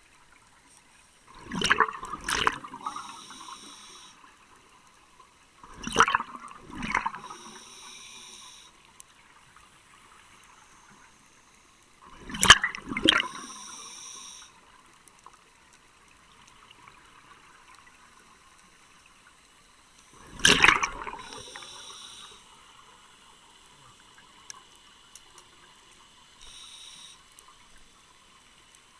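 Scuba diver breathing through a regulator underwater: four bursts of exhaled bubbles, every six to eight seconds, each followed by a fainter hiss.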